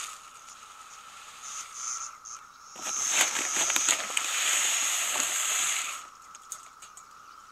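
Scoop digging into a paper sack of chicken feed: grain rustling and pouring against the scoop and the bag for about three seconds, with a few smaller rustles before it.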